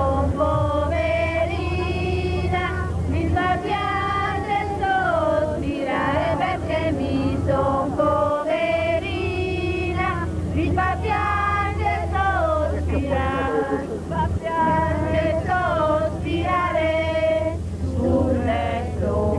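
A group of passengers singing a song together inside a moving coach, women's and children's voices in unison, over the steady low drone of the bus engine.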